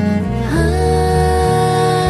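Instrumental passage of a slow, sad pop ballad. A long held melody note enters about half a second in, sliding up into pitch, over a steady bass line.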